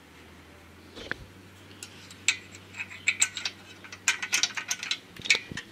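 Chevy 350 small-block engine block being turned over on its engine stand: a knock about a second in, then a run of sharp, irregular metallic clicks and clanks from the stand's rotating head.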